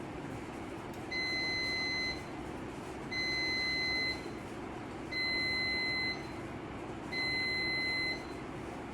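Coin-operated washing machine sounding its end-of-cycle alert: four steady beeps, each about a second long and about two seconds apart, over a steady low hum.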